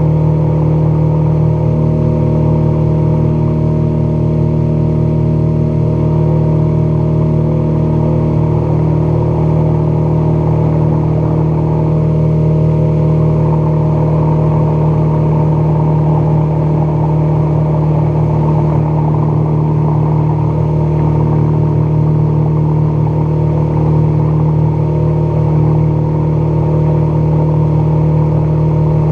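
Outboard motor of an aluminium fishing boat running steadily at cruising speed: a constant engine drone, with the rush of water along the hull.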